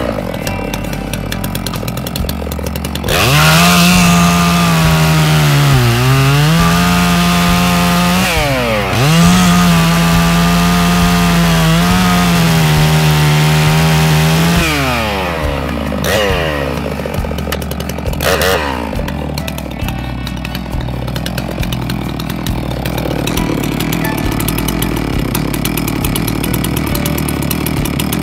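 Holzfforma G660, a 92cc two-stroke Stihl 660 clone chainsaw, running at a low level, then held at full throttle cutting through a log for about twelve seconds. Its pitch sags twice during the cut before it drops back to idle.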